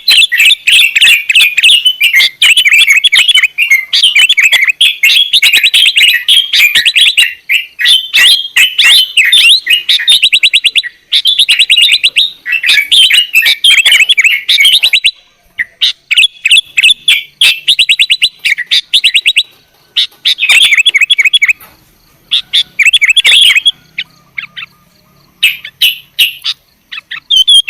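Sooty-headed bulbul (kutilang) chattering: a fast, dense run of high chirps, nearly unbroken for about fifteen seconds, then in shorter bursts with pauses between them.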